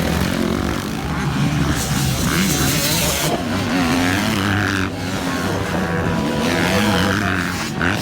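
Motocross bike engines revving up and down, the pitch rising and falling over and over as the bikes race.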